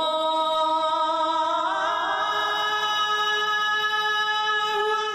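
One long held note with many overtones, scooping up in pitch as it begins and stepping up in pitch about two seconds in, then fading out just after the end.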